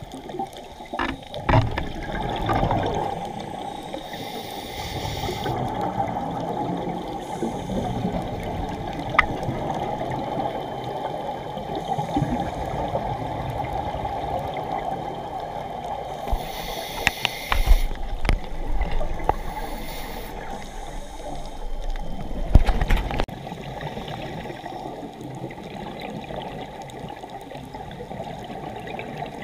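Underwater sound of a scuba dive: a steady muffled rush of water with irregular bursts of bubbling from divers' exhalations through their regulators, the loudest around the middle and about three-quarters of the way through.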